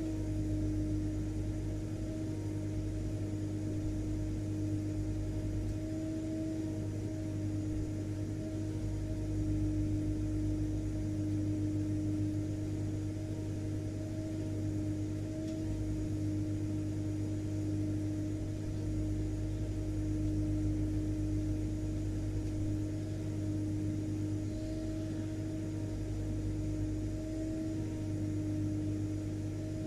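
Vacuum cleaner motor running steadily: a constant low hum with a steady whine above it, unchanging throughout.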